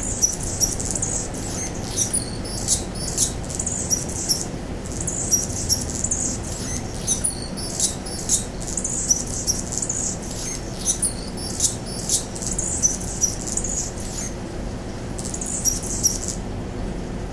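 Male Anna's hummingbird singing from a perch: a run of high, scratchy, squeaky phrases repeated over and over, including the two extra high-pitched squeaks that set this male's song apart. The song pauses briefly near the end, resumes, then stops about a second before the end.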